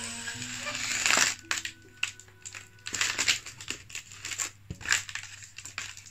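Foil balloon crinkling and crackling in irregular bursts as it is blown up by mouth through a straw in its valve.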